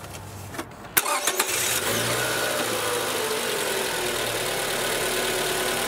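2016 Scion tC's 2.5-litre four-cylinder engine cranked briefly by the starter and catching about a second in, then idling, its pitch easing down over a couple of seconds and then holding steady. The short crank runs off a weak seven-year-old battery that the tester reads as cranking low, with the voltage sagging to about 9 V.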